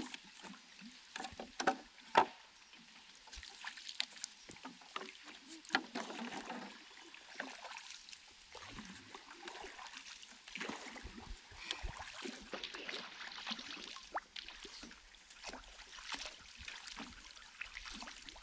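Water sloshing and splashing in irregular bursts, with scattered small knocks and clicks.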